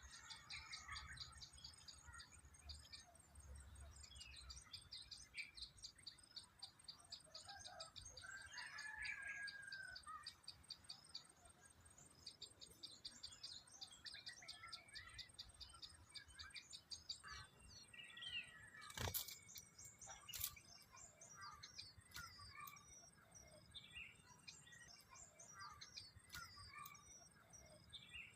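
Faint wild bird chirps and calls over runs of rapid high-pitched trilling, with a single sharp click a little past the middle.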